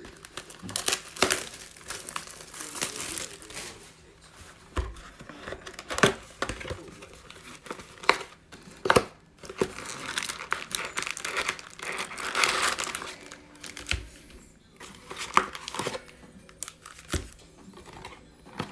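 Plastic shrink-wrap being torn off a cardboard trading-card box, crinkling and crackling, then the box lid flipped open and foil card packs pulled out with rustling and light taps.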